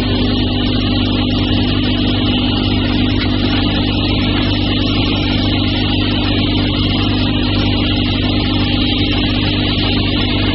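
KP-62 round-stick (dowel) machine running steadily: a constant electric-motor hum with a whirring rush above it, unchanging throughout.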